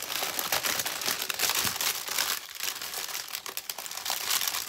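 Plastic bags of diamond-painting drills crinkling and rustling as they are handled and pressed back into their clear plastic packaging, with a brief lull about two and a half seconds in.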